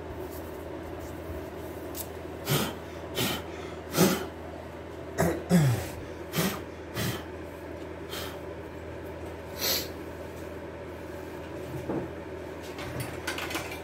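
A series of short, irregular puffs of breath blown over a freshly painted car wheel rim to clear off lint and dust.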